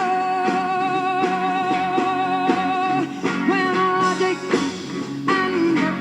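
Rock music in a psychedelic style, with singing over guitar and band; the voice holds long notes with vibrato.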